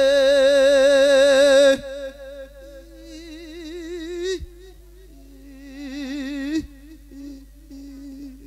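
A Buddhist monk's male voice singing an Isan lae, a melodic chanted sermon, into a handheld microphone: long held notes with a wide, quick vibrato in three phrases, the first and loudest ending about two seconds in, each cut off sharply, then softer voice near the end.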